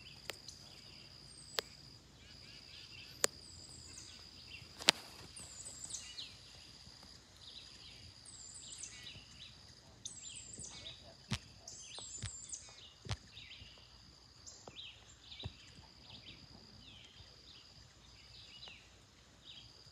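Summer outdoor ambience: a steady high insect drone with birds chirping over it again and again. Several sharp clicks or taps stand out, the loudest about five seconds in.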